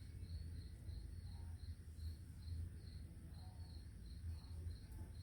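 Cricket chirping: a steady train of short high pulses, about three a second, over a low steady hum.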